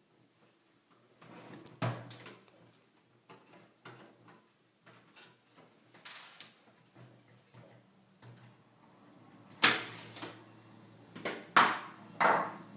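Scattered clicks and knocks of plastic and metal parts being handled while a PlayStation 3 fat console is taken apart. There is a sharp knock about two seconds in, and the loudest knocks come in a cluster near the end.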